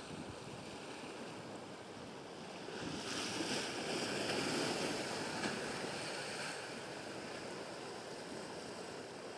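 Sea surf washing ashore, with one wave swelling louder in the middle and easing off, and wind buffeting the microphone.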